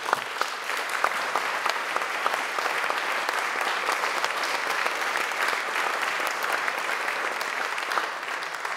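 An audience of lunch guests applauding: dense, steady clapping that starts abruptly and begins to die away near the end.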